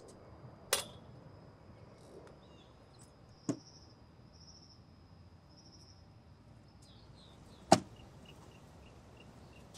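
Outdoor background with a thin steady high whine, broken by three sharp knocks, the loudest about three-quarters of the way in. Faint short bird chirps repeat quickly near the end.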